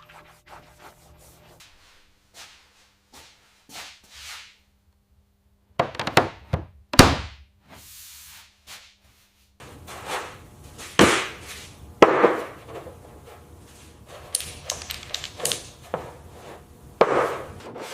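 Small hard parts of a metal toy car being handled and fitted: mostly quiet at first, then a few sharp knocks about six to seven seconds in, followed by a run of clicks, knocks and short scraping strokes.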